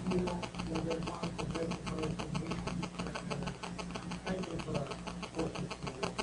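Faint, indistinct speech from a voice away from the microphone, over a steady electrical hum and buzz.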